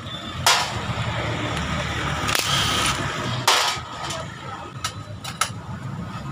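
Cordless impact tool running in three short bursts in the first four seconds, backing out the bolts of a scooter's engine side cover, followed by a few light clinks.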